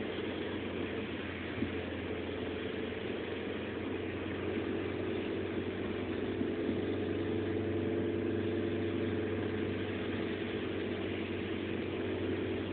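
A car engine running steadily with road noise, a little louder around the middle.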